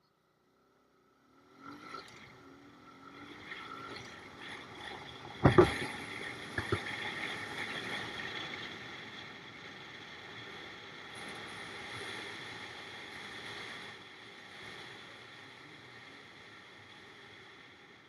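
Small motorcycle riding, its engine and wind noise rising in after a near-silent start, with a sharp loud thump about five and a half seconds in and a smaller one a second later; the running noise then slowly fades.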